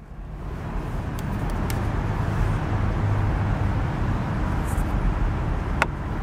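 A car's sun visor being handled, giving a few light clicks and a sharper click near the end, over a steady low rumble.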